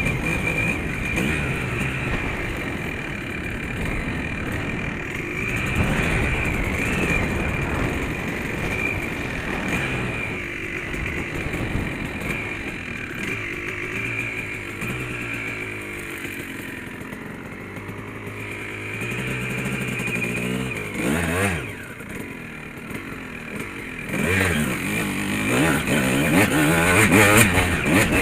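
Honda dirt bike engine running under way off-road, its revs rising and falling as the throttle is worked. There is a quick rev about 21 seconds in, and harder revving near the end.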